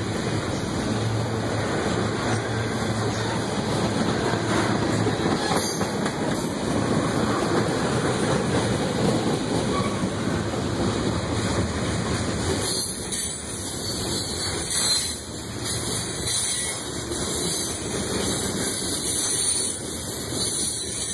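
Manifest freight train's cars rolling past at close range: a steady rumble of steel wheels on the rail. After about twelve seconds the low rumble thins and a hissier rush with uneven loudness takes over.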